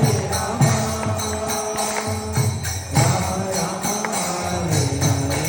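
Hindu devotional bhajan music: long held melody notes over jingling bell-like percussion, with a few sharp drum strikes.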